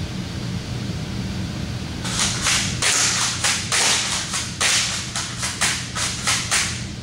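Spring-powered MP5 replica airsoft rifle being cocked and fired in quick succession: about a dozen sharp, hissy snaps over some five seconds, starting about two seconds in, over a steady low hum.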